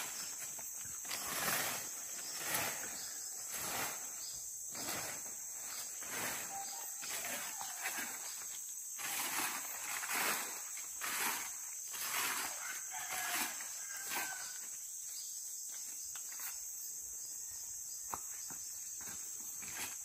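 Insects calling in a steady high drone, with soft rustling steps about once a second through most of the stretch that thin out near the end.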